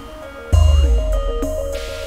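Ambient IDM/techno electronic music. After a quieter first half-second, a deep bass hit comes in under a sequence of stepping synth notes, with a brief tone gliding down and back up.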